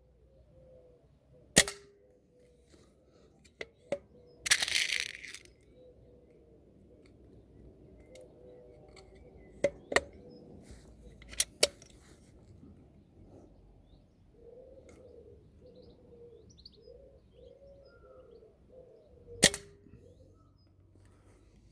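Homemade rifle shots: sharp cracks, the loudest about a second and a half in and again near the end, with smaller clicks and cracks between them and a short hiss at about four and a half seconds.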